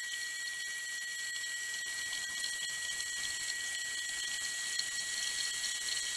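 Horizontal metal-cutting band saw cutting through round metal bar stock clamped in its vise: a steady, high-pitched whine with several overtones over a hiss.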